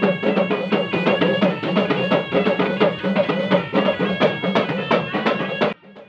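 Traditional tribal dance music: quick, evenly spaced hand-drum beats under held pitched melody notes. It cuts off suddenly just before the end.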